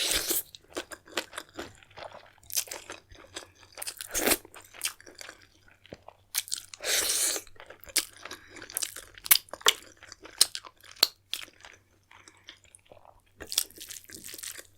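Close-miked chewing and crunching of food, with wet mouth clicks and crackles one after another. A longer, louder rushing noise comes about seven seconds in, and there is a brief lull near the end.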